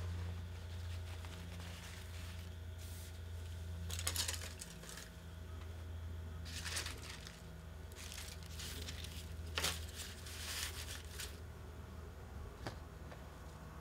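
Bamboo leaves being handled, rustling and crinkling in short irregular bursts, over a steady low hum.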